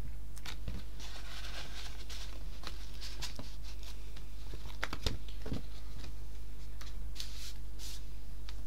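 Paper and card pages of a ring-bound junk journal rustling and flapping as they are turned and handled, with a few sharp taps and clicks, over a steady low hum.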